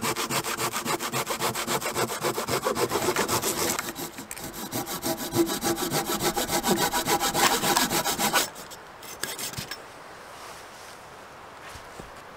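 Hand saw cutting through a log in quick, even strokes, about four a second, which stop suddenly about eight and a half seconds in as the cut goes through. A few light knocks follow.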